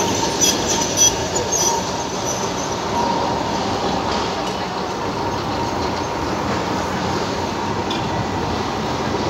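Alexandria Raml line tram car rolling past close by on street rails and moving away, with a thin high wheel squeal over the first two seconds above a steady running rumble.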